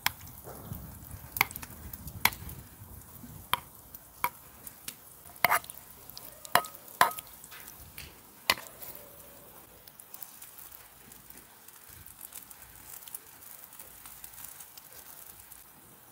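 A spoon clinking and scraping against a small stainless saucepan as sauce is scooped out and spread, about nine sharp clinks over the first eight or nine seconds, then only a faint steady hiss.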